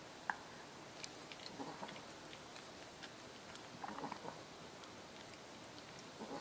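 Faint small clicks, taps and scrapes as a kitten bites and paws at a hollow plastic lattice ball toy, a sharp click shortly after the start and little clusters of ticks twice more.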